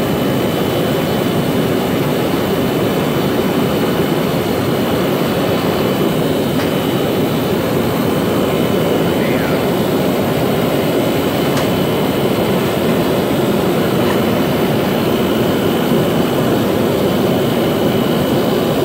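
Portable forced-air torpedo heater running: a steady roar of its burner and fan, with a thin, steady high whine on top.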